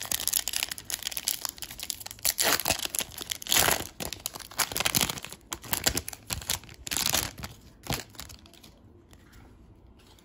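Foil wrapper of a Panini Prizm baseball card pack crinkling and tearing as it is ripped open by hand, the rustling dying away after about eight seconds.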